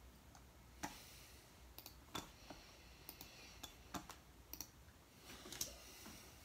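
Faint scattered sharp clicks, six or so at irregular gaps of about a second, over a steady low hum.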